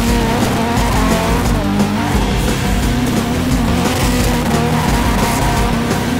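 Ford rally car spinning burnout doughnuts: the engine revving hard under the wavering squeal and skid of its spinning tyres on pavement.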